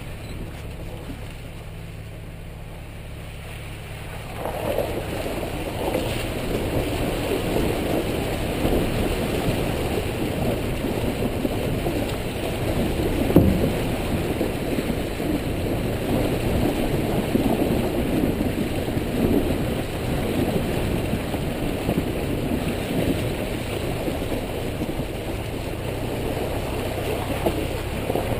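Vehicle engine running at low speed while the tyres roll over rocks and through a shallow river crossing, water sloshing and gravel crunching from about four seconds in. One sharper knock about thirteen seconds in.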